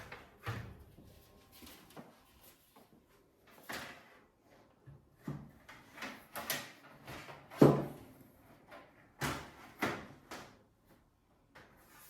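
Scattered knocks and clicks from a PC case's panels and parts being handled and taken off. The loudest thump comes about two-thirds of the way through.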